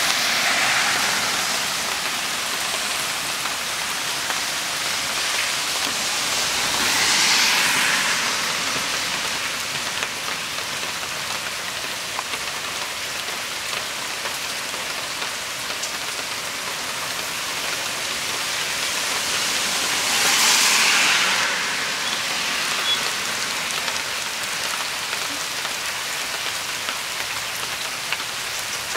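Heavy rain falling steadily on grass and wet ground, an even hiss of drops. It swells louder for a couple of seconds three times: near the start, about seven seconds in, and about twenty seconds in.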